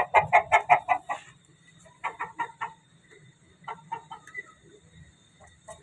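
Chickens clucking: a quick run of short clucks at about eight a second, then shorter runs of clucks about two and four seconds in.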